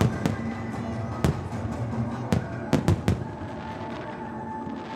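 Fireworks shells bursting: about seven sharp bangs in the first three seconds, three in quick succession near three seconds in, over steady music.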